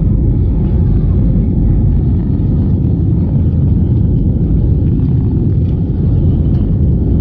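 Steady low rumble of an airliner's jet engines and airflow heard inside the passenger cabin as the plane climbs after takeoff.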